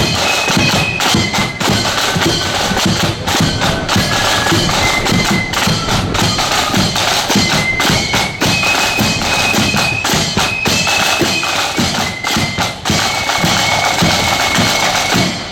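Marching flute band playing: a high, shrill flute melody over rapid, loud snare and bass drumming.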